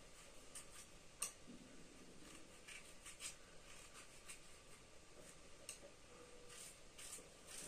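Faint, irregular scraping and clicking of a small knife peeling the rind off pieces of raw pumpkin by hand, with a sharper click about a second in.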